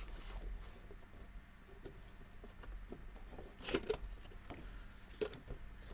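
Cardboard box being opened by hand: faint scrapes and taps as the top tuck flap is pried up, with two sharper clicks, one a little past the middle and one near the end.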